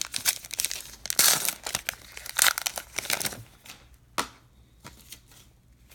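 Wrapper of a 2019 Topps Allen & Ginter baseball card pack crinkling and tearing open in a run of loud crackles over the first three seconds or so, then a sharp tap and quieter handling of the cards.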